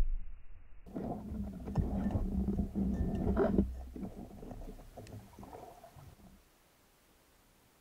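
Underwater noise picked up through an action-camera housing: a heavy thud right at the start, then about three seconds of rushing, bubbling water with a low hum and scattered clicks as the diver moves, dying away about six seconds in.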